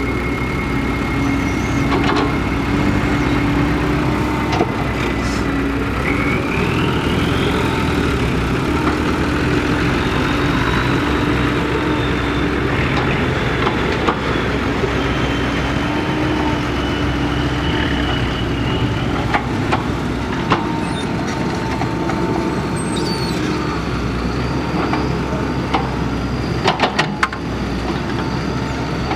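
Kobelco excavator's diesel engine running steadily under work, with a high whine that rises in pitch about six seconds in and then holds. A few sharp clicks come near the end.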